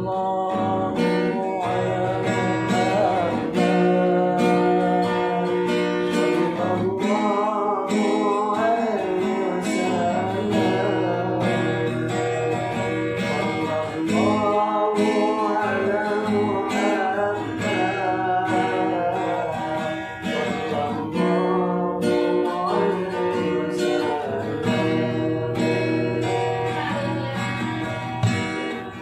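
Acoustic guitar strumming chords while a voice sings a melody over it.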